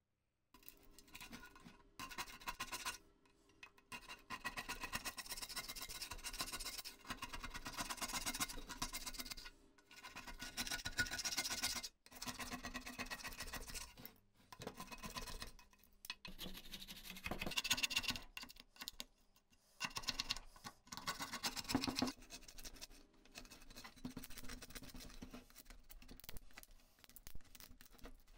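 Plastic scraper scraping caked grime and corrosion off the metal body of an old potato slicer, in bouts of quick strokes with short pauses between them.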